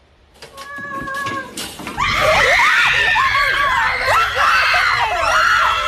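Several people screaming and shrieking over one another in a kitchen, starting suddenly about two seconds in, amid the frantic chase of a mouse. Before that come a few faint knocks and a brief high whine.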